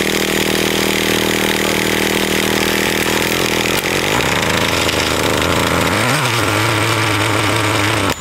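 Small engine of a radio-controlled car running steadily with a chainsaw-like buzz; its pitch wavers up and down about six seconds in.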